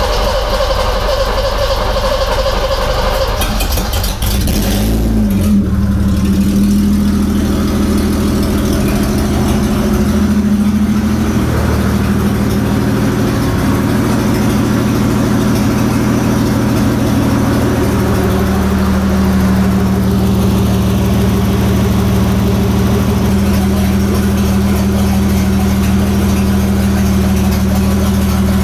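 BMW E30's M20 straight-six on its first start after a timing belt replacement: cranked on the starter, it catches about five seconds in, rises briefly in pitch and settles into a steady idle. It is slow to fire because the new fuel lines and rail were still empty of fuel.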